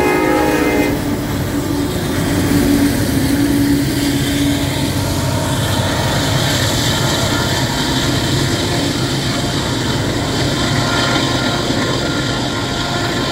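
Head-end diesel-electric locomotives of a long freight train passing, their engines running with a steady drone and low rumble. The locomotive horn cuts off about a second in.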